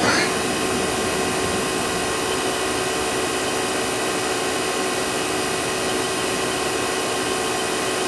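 Daewoo DMV-500 vertical machining center spindle speeding up at the very start with a short rising whine, then running steadily at 3,000 RPM with an even whine.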